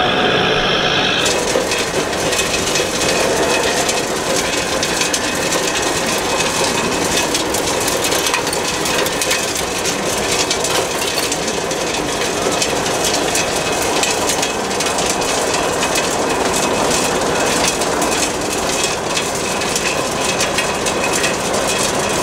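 1/14-scale RC wheeled excavator working a soil heap, its hydraulics running steadily, with dense crunching and clicking of dirt and many fine clicks over a loud, noisy background.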